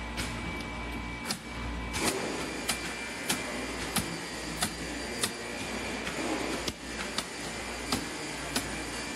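Pneumatic nail gun firing into the pine boards of a wooden core box, a sharp shot roughly every two-thirds of a second, over a steady low hum.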